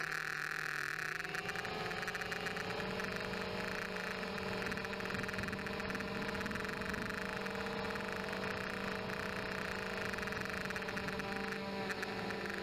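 Blade 200QX quadcopter's brushless motors and propellers whining steadily as it flies, heard close up from the camera mounted on the quad; the pitch dips and climbs again in the first couple of seconds as the throttle changes.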